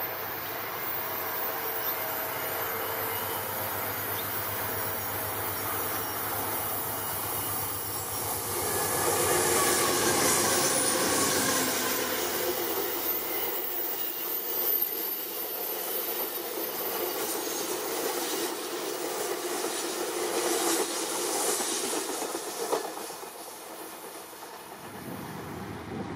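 Amtrak passenger train of bilevel cars passing close by, its wheels running on the rails. The sound grows louder about a third of the way in, carries some high wheel squeal, and ends with clicks over the rail joints before it fades near the end.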